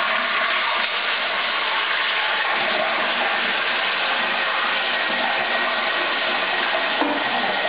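Toilet flushing through a standard flapper valve, a full 12-litre flush: water gushing steadily from the tank into the bowl, starting abruptly.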